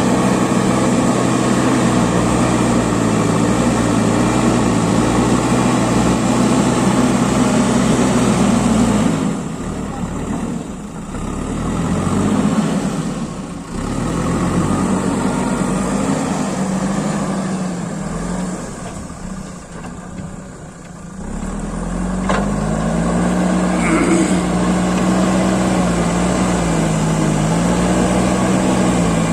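JCB backhoe loader's diesel engine running and working, its pitch wavering with the load. Twice the engine eases off and quietens, then picks up again. A couple of sharp knocks come late on.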